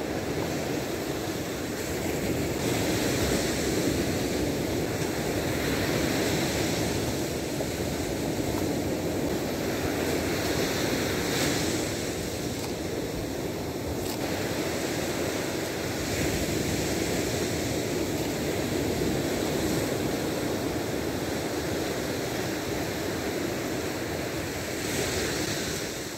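Ocean surf breaking and washing on a sandy beach, a steady rush that swells and eases every few seconds, with wind buffeting the microphone.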